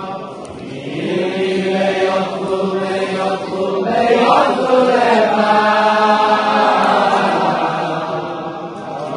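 Men's voices chanting a slow Hasidic melody with long, held notes.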